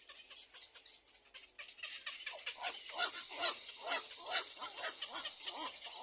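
Little egret chicks in the nest giving repeated begging calls for food. The calls are faint at first and then come loud and regular, about two a second, from about two seconds in.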